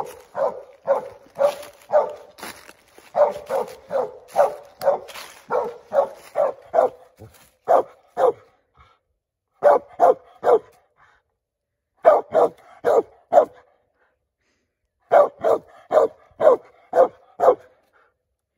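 A squirrel dog barking treed: steady chopped barks, about two a second, in runs with short breaks, as he bays up a hickory where he has a squirrel located.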